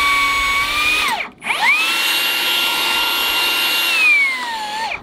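HiKOKI cordless rebar bender-cutter's electric motor and gear drive whining at a high, steady pitch. It stops about a second in, starts again half a second later, and sags in pitch near the end before stopping.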